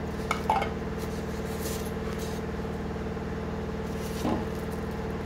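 Light handling noise of a rice cooker's plastic steaming tray being lifted from its box: a few sharp clicks about half a second in, then soft rustles of packaging. Under it runs a steady low hum.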